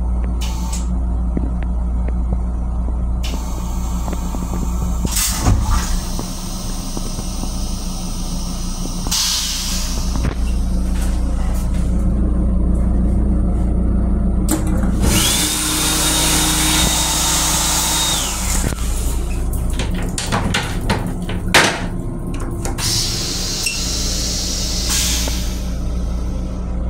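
Steady low hum of the M7 railcar, heard inside its small restroom, with scattered clicks and knocks. About fifteen seconds in, the restroom's touchless sink unit runs for about four seconds, a hiss with a steady high whine that starts and stops together.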